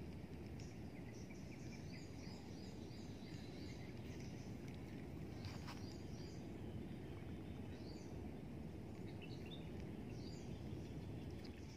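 Small birds chirping in short, quick repeated calls, in clusters early on and again toward the end, over a steady low background noise. There is one faint click a little past halfway.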